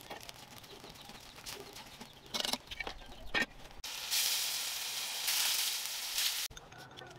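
Blocks of tofu sizzling in hot oil in a pan over a wood fire: a loud, even hiss starts about four seconds in and stops abruptly after about two and a half seconds. Before it, faint crackles and pops from the wood fire.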